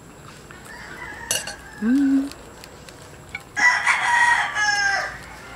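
A rooster crowing once, a call of about a second and a half that ends on a falling note, with a short low sound about two seconds in.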